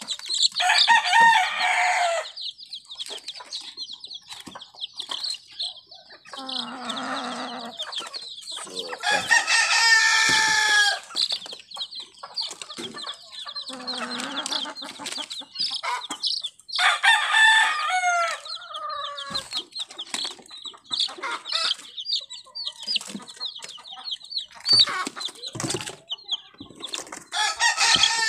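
A box of White Leghorn chicks peeping continuously, while a rooster crows about four times, each crow lasting a couple of seconds and falling in pitch at the end. Lower calls come in between the crows.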